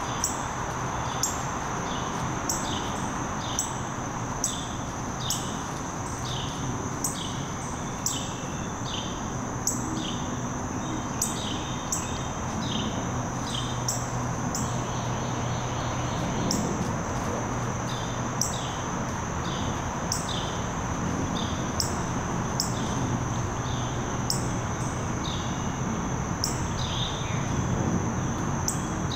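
Woodland ambience: a steady high insect drone with short, falling chirps and sharp clicks repeating several times a second, over a faint low hum.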